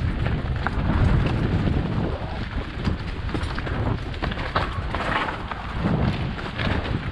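Mountain bike riding down a rough trail: heavy wind rumble on the microphone with the bike rattling and knocking over the ground in quick, irregular clicks.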